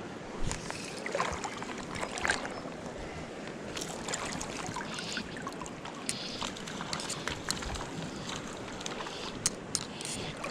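Creek water running, with irregular close splashes and sloshes of water.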